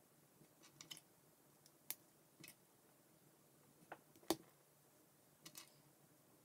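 Scattered clicks of K'NEX plastic rods and connectors being handled and snapped together, about six in all, the sharpest and loudest a little past four seconds in.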